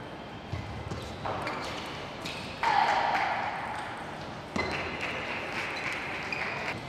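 Table tennis ball clicking off rubber paddles and bouncing on the table during rallies, in a large hall. A sudden louder burst of noise comes about two and a half seconds in.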